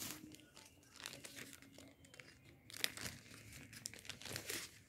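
Faint crinkling and rustling of paper doll pieces and their blind-bag packaging being handled, in a series of short, irregular rustles and scrapes.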